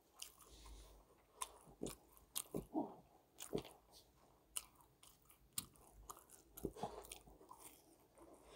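Faint close-miked eating: chewing and biting of Korean fried snacks coated in tteokbokki sauce, with scattered light clicks.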